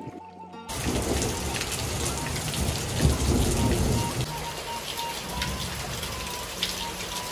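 Rain falling steadily, starting suddenly about a second in, with a low rumble under it for the first few seconds that is loudest around the middle of that stretch.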